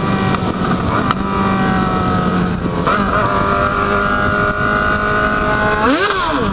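Yamaha XJ6 motorcycle's inline-four engine running under way, with wind rushing past. The engine note changes about halfway through, then the revs rise and fall quickly near the end.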